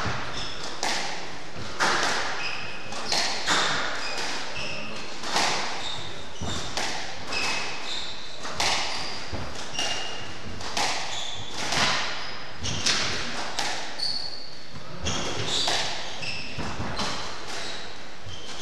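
Squash rally: the ball repeatedly struck by rackets and smacking off the walls, a sharp crack every second or so, with short high squeaks of court shoes on the wooden floor in between.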